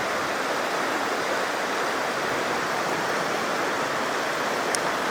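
Waterfall: water pouring over rocks in a steady, constant rush.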